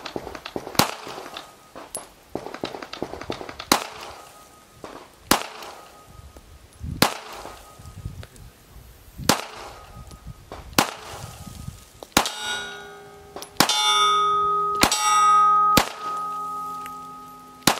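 Ruger LCP Max .380 ACP pistol fired about eleven times, one shot every one to two seconds, cycling without a jam. Steel plate targets ring after the hits, loudest and longest over the last several shots.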